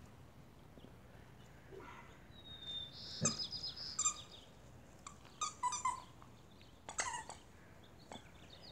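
Eight-week-old puppies giving short, high-pitched yelps and squeals as they play, in a few quick bursts about three seconds in, again around five to six seconds, and near seven seconds.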